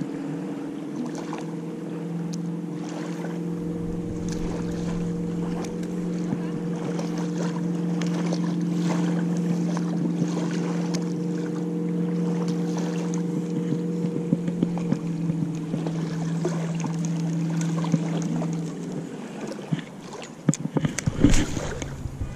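Motorboat engine running at a steady drone with an even hum, which stops about nineteen seconds in. A few sharp clicks and knocks follow near the end.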